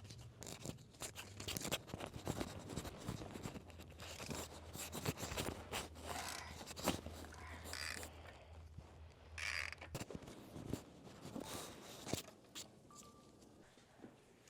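Metal tools clicking, tapping and scraping against engine parts during a cylinder-head teardown, with a low steady hum that stops about ten seconds in.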